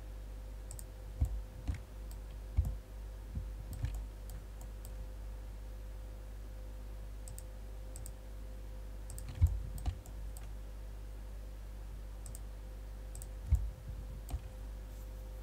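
Computer mouse buttons clicking, a dozen or so short sharp clicks in small clusters, several with a dull low knock under them, over a steady low hum.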